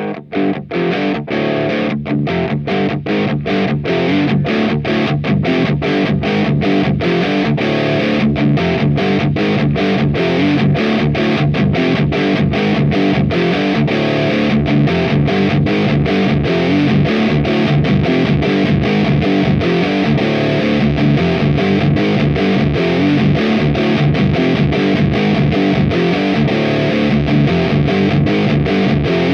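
Electric guitar through an AMT Bricks R/S Lead tube preamp on heavy high-gain distortion, playing a steady chugging metal riff with short, evenly spaced stops about three times a second.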